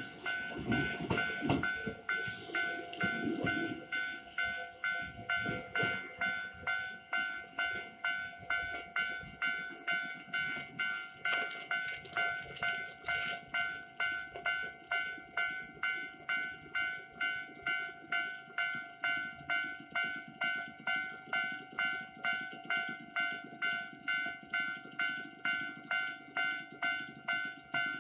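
Japanese level-crossing warning bell ringing in an even, repeating rhythm of about two dings a second. A Kintetsu train rumbles and clacks over the rails in the first few seconds, then fades.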